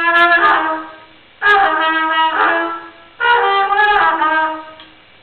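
Solo trumpet playing three short phrases of several notes each, with brief pauses between them.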